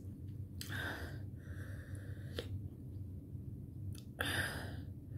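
A person breathing out hard twice, about a second in and again near the end, with a faint click between, over a low steady hum.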